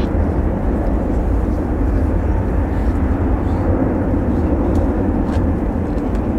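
Jet engines of a heavy freighter aircraft, a steady low rumble.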